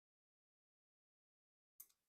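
Near silence, then one brief sharp click near the end, likely small parts or a tool handled during knife reassembly.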